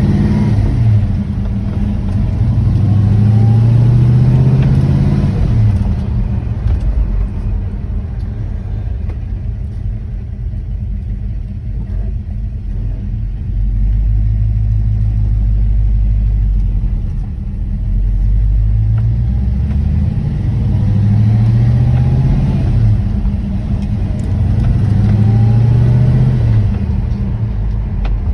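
1979 Camaro Z28's 350 V8 running loudly, revved up and let fall back a few times, with steady idling between the revs.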